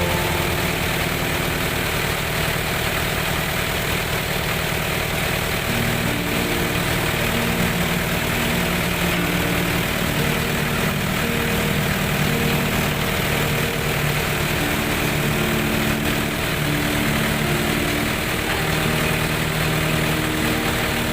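Colt Diesel 100 PS engine running steadily, driving a well-drilling rig.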